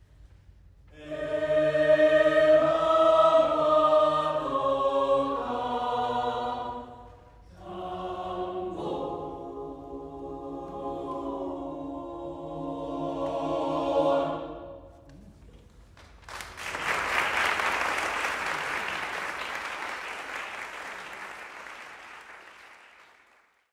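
Mixed choir singing two closing phrases, the last chord ending about 15 seconds in; after a short pause, audience applause breaks out and fades away near the end.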